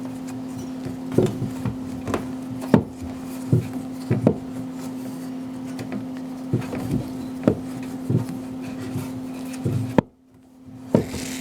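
Tubing cutter being worked around a copper water supply pipe: irregular clicks and knocks of metal on metal, with rubbing between them, over a steady low hum.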